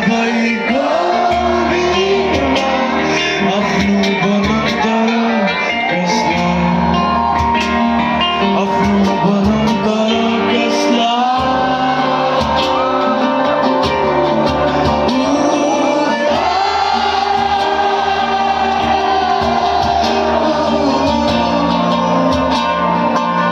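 Live band performing: a singer's voice over guitars, drums and bass, played loud through a PA system.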